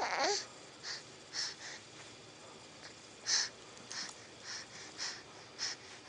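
A pet animal making a run of short, hissy, breathy puffs, roughly two a second, with a brief falling squeak at the very start.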